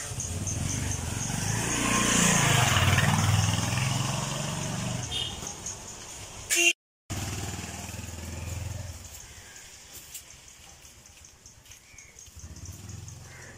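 A motor vehicle's engine passing by, its pitch sliding down and back up, loudest about two to four seconds in. After a short cut in the sound, a fainter engine hum fades and only quiet outdoor ambience is left.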